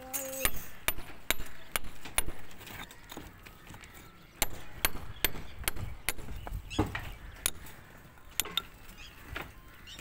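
A hand hammer striking a steel chisel, chipping into brick with sharp metallic clinks about two to three a second. The blows pause briefly a few seconds in, then resume.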